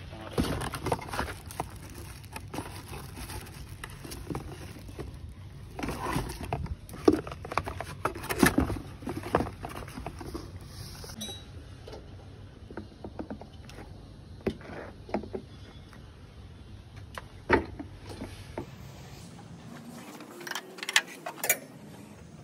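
Irregular clicks and knocks of plastic oil buckets and their lids being handled and pried open with a hand tool.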